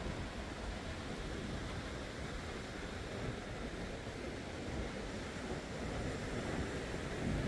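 Atlantic surf rolling in steadily, with wind rumbling on the microphone.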